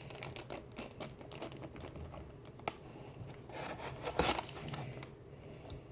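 Soft clicking and scraping from stirring a watery cornstarch-and-water oobleck mix in a plastic bin, with a louder rustle about four seconds in.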